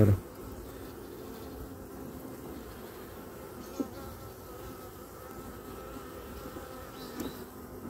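Honeybees buzzing over an open hive full of bees, a steady hum with a faint wavering tone. Two light clicks stand out, one about four seconds in and one near the end.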